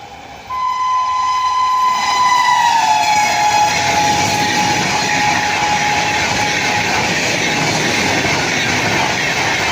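WAP-7 electric locomotive horn sounding one long blast about half a second in, its pitch dropping as the locomotive passes, followed by the steady rush of wheels on rail as the train runs by.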